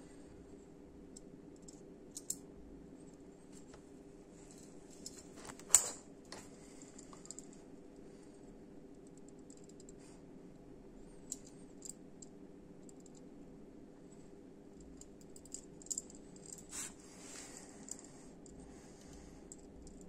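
Aluminium-handled flip-out folding knife being worked open and shut: small metallic clicks and rattles from the blade and handle. One sharp, loud snap about six seconds in, and a few fainter clicks near the end.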